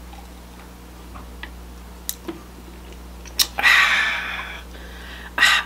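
Close-miked eating sounds: a few light clicks, then a loud breathy rush lasting about a second, starting about three and a half seconds in, most likely a sharp exhale through the open mouth.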